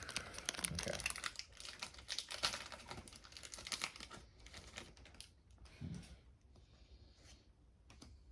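Foil trading-card booster pack crinkling and rustling as it is handled and opened, with a run of quick small clicks. It is busiest in the first four seconds and fainter after.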